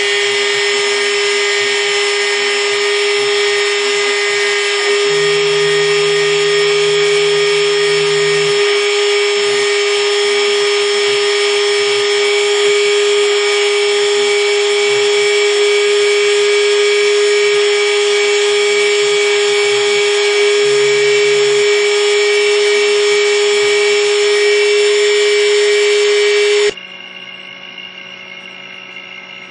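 A Takima router spindle on a CNC mill runs at a steady high-pitched whine while engraving a copper PCB with a 0.8 mm bit, with lower sounds from the machine coming and going underneath. Near the end the whine cuts off suddenly, leaving a low hum.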